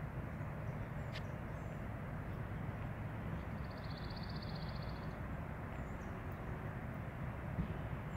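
Steady low outdoor rumble under a small songbird's fast, even trill of about a second and a half near the middle, with a brief high chirp about a second in.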